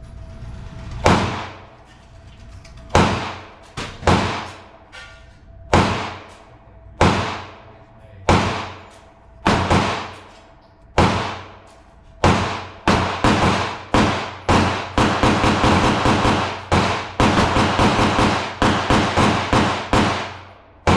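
Glock pistol shots with a short ringing decay after each: single shots about a second apart at first, then a quicker string of rapid fire, about two or three shots a second, through the second half.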